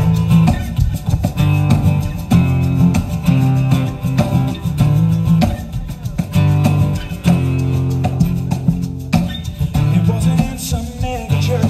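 Two acoustic guitars strumming chords in a steady rhythm at the start of a live song, with strong low notes under them.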